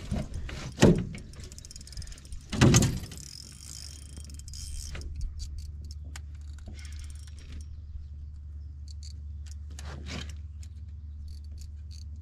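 Handling sounds as a bass is reeled in from an aluminum boat: two heavy thumps in the first three seconds, then light irregular clicks and taps from the spinning reel and rod over a steady low hum.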